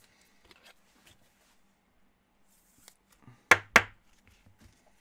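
Quiet handling of trading cards with faint small ticks, then two sharp taps about a quarter second apart, typical of a card or stack of cards knocked down on a tabletop.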